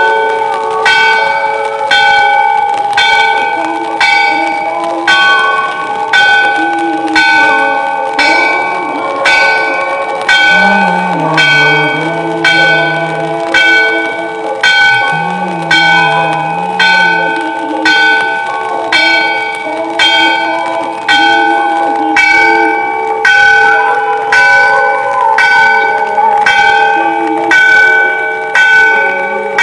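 Temple bell struck steadily, about once a second, during an evening aarti, its tone ringing on between strokes. A voice rises and falls faintly beneath it for a few seconds midway.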